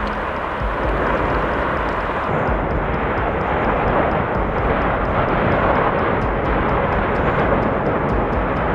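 Steady roar and rumble of a volcanic eruption, jet-like and unbroken. The hissy top of the sound drops away about two seconds in.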